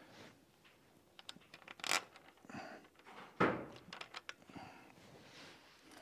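Light clicks and scrapes of a bolt and nut being fitted by hand to the lower mount of a bicycle rear rack strut, with two louder scrapes, one a little before two seconds in and one about halfway through.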